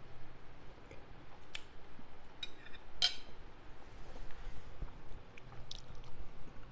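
A metal fork clinking against a plate a few times. The loudest, ringing clink comes about three seconds in.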